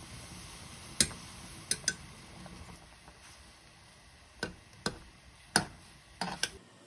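A ladle clicking and knocking against the sides of a pot while clumped doenjang is broken up and stirred into boiling broth: about eight sharp, irregular taps, some in quick pairs, over a faint bubbling hiss that fades away.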